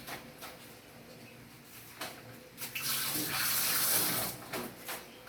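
Tap water running into a sink, loudest for a couple of seconds near the middle and end, with a few short knocks and clunks in between.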